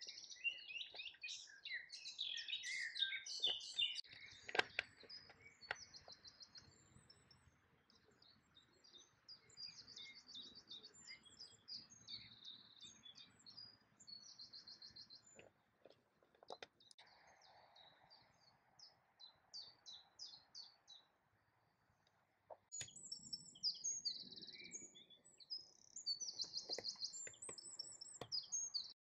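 Small songbirds singing: a mix of high chirps and quick, rapid trills. The birdsong drops out briefly about three-quarters of the way through, then resumes.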